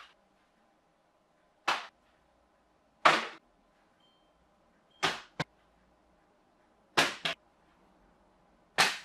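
A series of quick whooshes from paper aeroplane throws: five short swishes about two seconds apart, two of them followed at once by a second, shorter one.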